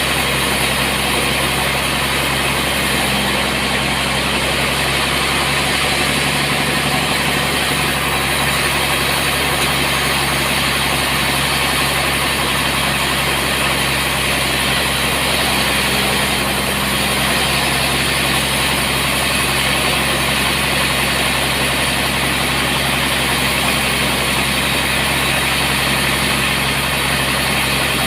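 Sawmill machinery running steadily: a constant engine-like hum with an even hiss over it, unchanging throughout.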